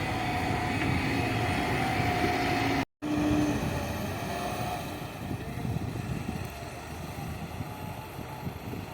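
Diesel engine of a JCB 3DX backhoe loader running as the machine works, with a steady whine over it. The sound drops out for an instant about three seconds in, and is somewhat quieter afterwards.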